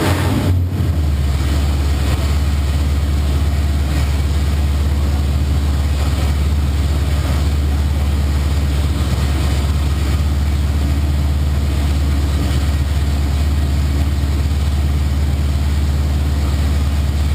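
Ford 302 (5.0 L) small-block V8, freshly rebuilt, running with no exhaust system or mufflers fitted, so it is very loud. Its speed drops a little about a second in and it then idles steadily.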